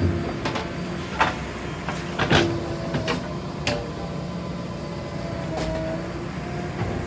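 JCB 3DX backhoe loader's diesel engine running steadily, with several sharp knocks and clanks over it; the loudest comes a little past two seconds in.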